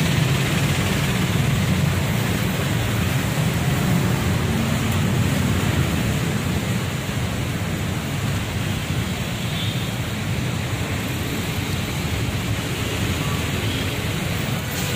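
Steady rushing wind noise on the microphone of a phone carried on a moving bicycle, with city road traffic passing alongside.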